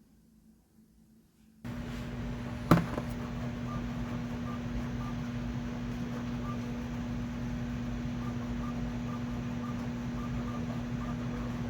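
Power drill motor running steadily with an even hum, turning a coil-winding jig. It comes in abruptly nearly two seconds in, with one sharp click about a second later.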